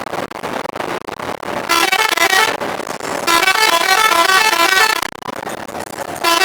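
Bus telolet horn playing its tune of quick stepping notes: a short burst about two seconds in, a longer one about a second later lasting nearly two seconds, and another starting at the very end, with steady road noise between.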